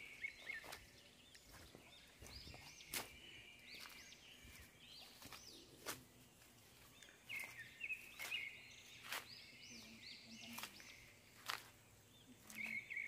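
Birds chirping in short runs of quick high notes, with a few faint footfalls through grass between them.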